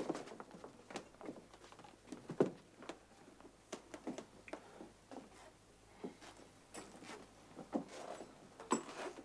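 Faint, irregular knocks and clicks, scattered a few at a time, the sharpest a little over two seconds in.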